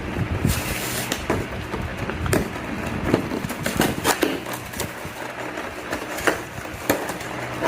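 Blind-box packaging being opened by hand: irregular crinkling, tearing and clicking of cardboard and plastic wrapping.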